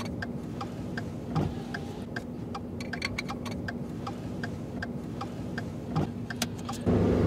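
Irregular sharp ticks, a few each second, over a steady low hum.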